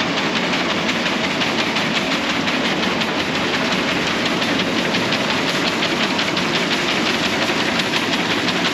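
Lewis Brothers poultry cruster (decaker) running with its newly fitted pickup screen and chains, a steady mechanical noise with a fast, even rattle.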